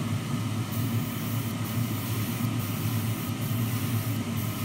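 Airbrush spraying paint at very low pressure to spatter a speckled finish: a high hiss of air that drops out briefly about once a second, over a steady low machine hum.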